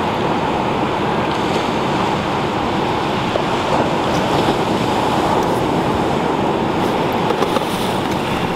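Steady rush of ocean surf washing onto the shore, with some wind on the microphone.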